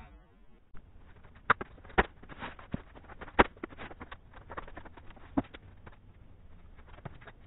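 Workshop clatter of wooden boards, clamps and tools being handled: scattered sharp knocks and clicks, with a few louder knocks standing out.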